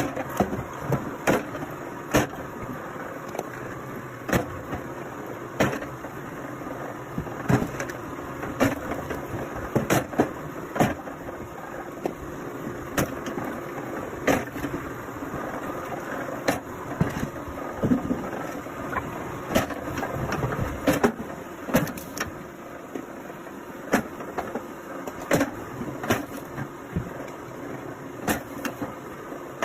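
Engine-driven firewood-splitting machine running steadily, with sharp knocks and cracks coming every second or so.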